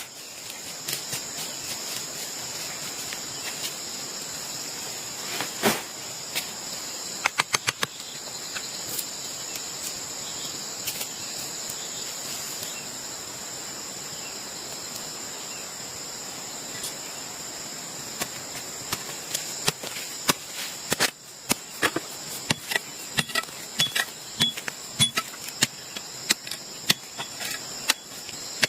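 Insects droning steadily at a high, even pitch, with scattered sharp knocks and clicks: a quick cluster about seven seconds in, and frequent knocks through the second half.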